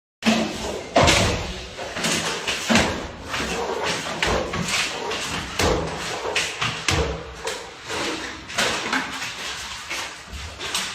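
A run of irregular knocks and thuds, with the sharpest about one second in and again near three seconds, over a busy background of noise.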